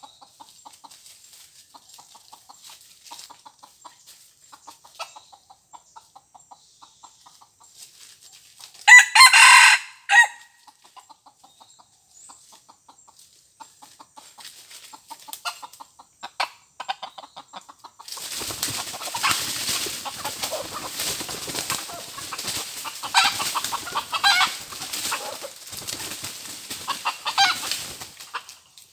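Red junglefowl rooster crowing once, loud and short, about nine seconds in, among soft clucking. From about eighteen seconds in there is a long stretch of rustling and crackling in dry leaf litter as the birds scratch and move through it.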